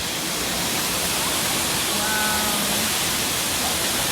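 Waterfall rushing, a steady loud noise of falling water.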